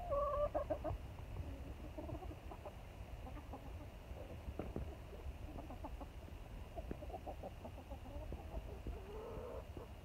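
Backyard chickens clucking, with a louder call right at the start and another near the end, and short clucks scattered between. A steady low rumble runs underneath.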